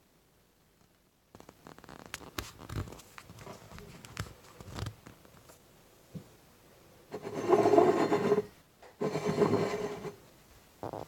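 Ceramic mug scraped across a countertop as it is turned by hand: two loud scrapes of about a second each near the end, after a few seconds of scattered light clicks and knocks.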